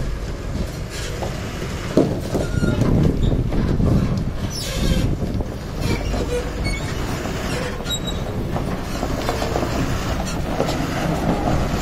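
Container truck pulling a multi-axle trailer with a shipping container, moving slowly over gravel: the engine running, the trailer rattling and a few brief squeaks from the rig.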